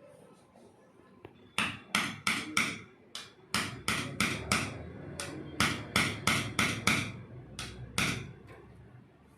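A run of about sixteen sharp percussive strikes, roughly three a second in short runs with brief pauses, starting about a second and a half in and stopping about eight seconds in: percussive work on a patient's body during chiropractic treatment.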